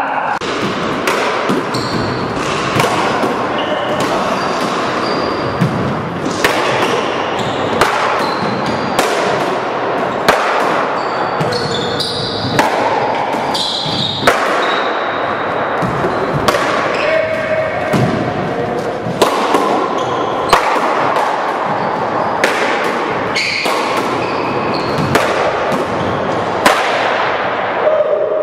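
A ball rally in an enclosed racquetball-style court: a small ball hit with paddles and smacking off the walls and hardwood floor, echoing hits about once a second, with brief high squeaks in between.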